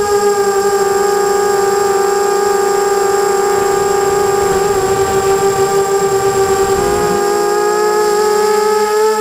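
Steady multi-tone whine of a 250-size FPV racing quadcopter's electric motors and propellers in flight, dipping slightly in pitch about seven seconds in and rising again near the end.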